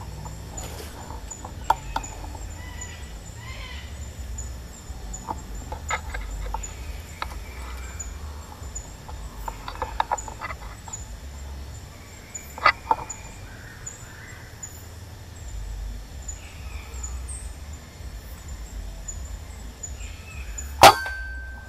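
A single air rifle shot near the end: one sharp crack followed by a brief ringing tone. Before it there is only low wind rumble with scattered faint clicks.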